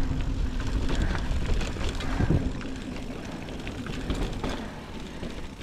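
Wind buffeting the helmet or chest camera's microphone while a mountain bike rides over a dirt trail, with scattered small knocks and rattles from the bumps. The noise eases off over the last couple of seconds as the bike slows.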